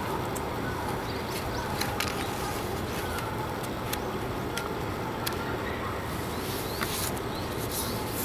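Steady outdoor background noise with scattered short, high chirps and clicks.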